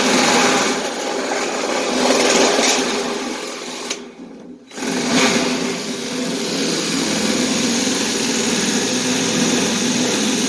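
Power cutting tool running steadily as it cuts a straight line, stopping briefly about four seconds in and then running on.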